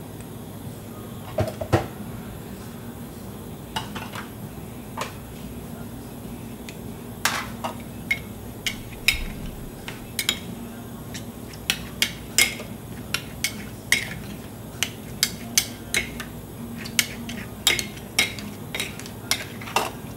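Metal spatulas clinking and scraping on a chilled stone plate as ice cream is chopped and mixed. The sharp clinks are scattered at first, then come about two a second from about a third of the way in, over a steady low hum.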